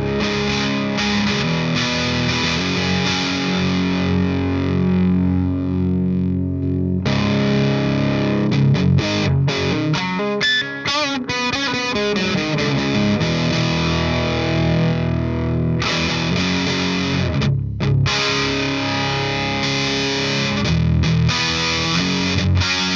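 Electric guitar played through a 2003 Rivera Knucklehead Reverb KR100 tube amp on its high-gain channel 3 with the boost off: heavily distorted riffs and ringing chords, with a stretch of fast picking in the middle.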